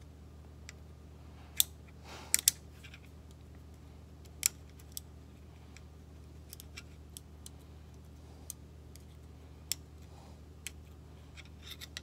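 About a dozen sharp, irregular clicks and taps of a small screwdriver and fingers working a brake pad wear sensor wire into its plastic retaining clip on a rear brake caliper, the loudest in the first few seconds, over a steady low hum.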